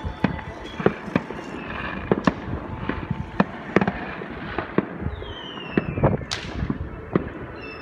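Fireworks going off across the neighbourhood: many sharp bangs at irregular intervals, some near and some further off, with a whistle falling in pitch about five seconds in.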